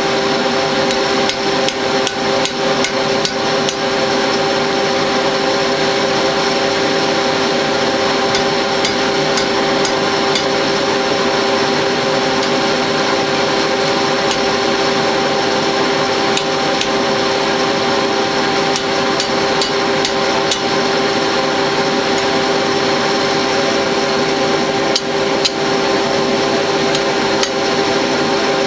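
Coal forge blower running with a steady hum, while a hammer strikes metal in irregular runs of sharp blows, as in forging at the anvil.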